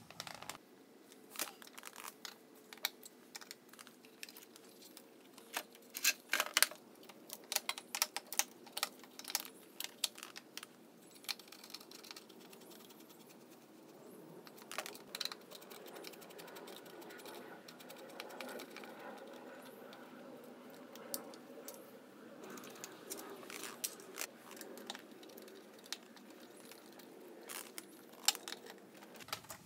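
Scattered light clicks and taps of a hand screwdriver and small screws working into the metal motor plate and plastic housing of a battery mower as it is reassembled.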